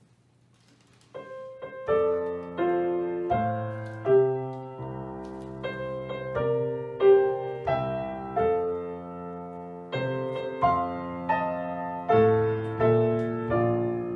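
Gentle background piano music: single notes and chords struck one after another, each ringing and fading, starting about a second in.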